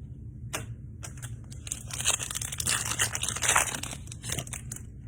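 Foil trading-card pack wrapper being crinkled and torn open, a crackly rustle with scattered light clicks, busiest from about one and a half to four and a half seconds in.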